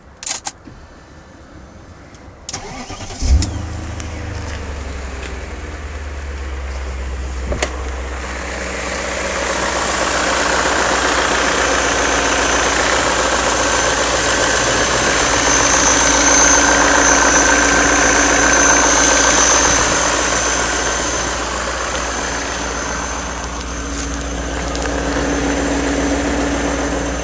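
BMW E39 M5's S62 V8 engine cranks and starts about three seconds in, then runs with a knocking that seems to come from both cylinder banks. It gets louder from about eight seconds in and eases off again after about twenty.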